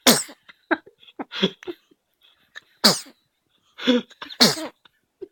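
A five-day-old newborn sneezing: three short, sharp sneezes, one right at the start, one about three seconds in and one near the end, with fainter little sounds between.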